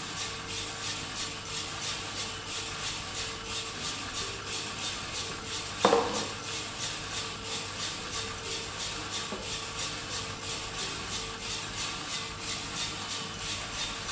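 Skywalker drum coffee roaster running early in a roast, with the bean temperature still falling: the beans tumble in the rotating drum as an even rattling rustle that pulses about three times a second, over the steady hum of the roaster's fan. A brief louder sound comes about six seconds in.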